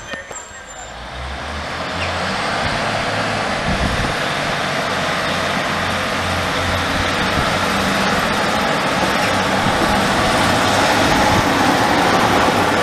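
Class 156 diesel multiple unit pulling away from a station, its underfloor diesel engines working under power and growing slowly louder as the unit approaches and passes close by.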